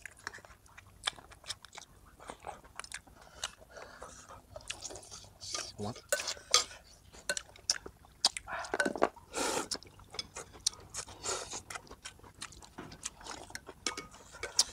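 People eating at close range: chewing and crunching on crispy fried fish cakes, with chopsticks and spoons clicking against ceramic bowls in many short sharp ticks.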